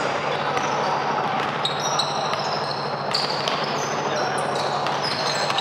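Basketball play on an indoor court: the ball bouncing, and short high squeaks of basketball shoes on the floor, over a steady hubbub of the hall.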